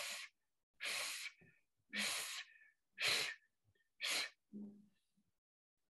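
A man's sharp breaths out through the mouth, five in a row about a second apart, then a brief low vocal sound. These are forceful single exhalations from the diaphragm, shown as a breathing exercise for trumpet players.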